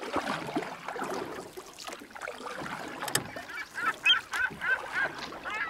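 Geese honking: a quick run of repeated calls in the second half. Before it comes a jumble of other noise, with a sharp click about three seconds in.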